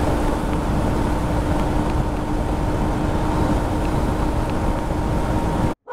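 Motorcycle engine running at a steady cruising speed under heavy wind rush. The sound cuts off suddenly near the end.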